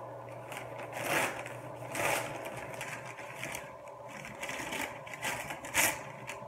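Newspaper wrapping crinkling and rustling as it is pulled open by hand, in irregular bursts, with louder crumples about a second in, at two seconds and near the end. A faint steady hum lies underneath.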